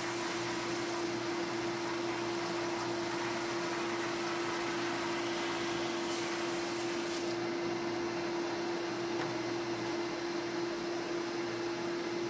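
Flatmaster drum sander running with a steady hum, its 120-grit abrasive hissing against a wooden raised panel being fed across the drum until about seven seconds in.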